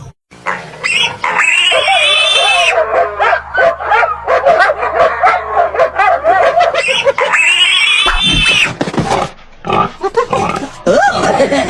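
Loud, high-pitched squealing and wavering grunting calls, animal-like, played as a comedy sound effect. There are two long squeals, one early and one about two-thirds of the way through, with rapid wobbling calls between them.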